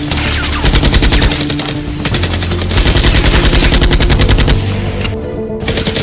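Automatic-gunfire sound effects dubbed over toy blasters: two rapid bursts of shots, the second longer, over background music.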